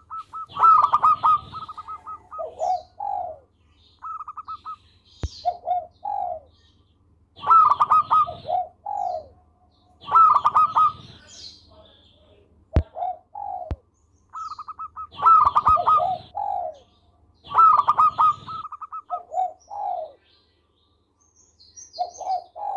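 Zebra dove (perkutut) singing its cooing song. The phrases repeat every two to three seconds, each a fast run of pulsed notes followed by a few lower, drawn-out coos. A few sharp clicks fall between phrases.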